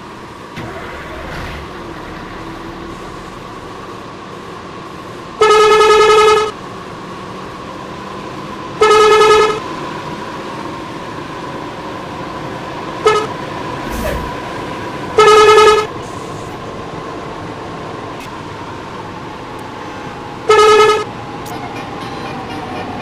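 Basuri telolet bus horn sounding five loud blasts, each a single steady pitch about a second long, the third only a short toot. Between the blasts there is a steady background hum.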